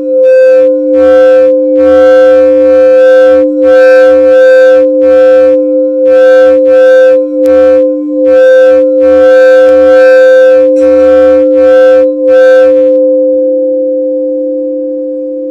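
Crystal quartz singing bowls ringing in two steady, sustained tones, one lower and one higher. Bright, pulsing bursts are layered over them until about 13 seconds in. After that the bowls ring on alone and slowly fade, with the lower tone shifting slightly higher near the end.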